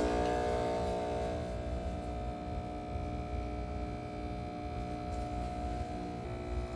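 Breville espresso machine's pump humming steadily as it pulls a double shot of espresso, a little louder at first, then settling.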